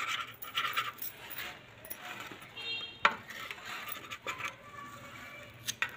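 Metal spatula scraping along a flat tawa as it slides under an omelette to lift it, with a few sharp metal clinks scattered through.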